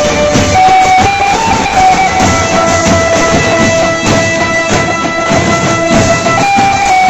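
Loud music: a lead melody of held notes stepping up and down in pitch over a steady beat of drum hits.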